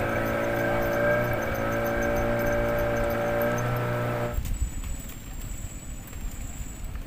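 An engine drones at a steady pitch, then cuts off abruptly about four seconds in. After that there is only a quiet background with a faint, high, on-and-off buzz.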